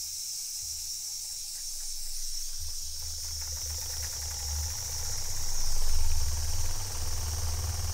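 Empire No.62 toy steam engine running with a steady hiss of steam. About two and a half seconds in the throttle is opened and the engine speeds up, running faster and louder, loudest a little before the end.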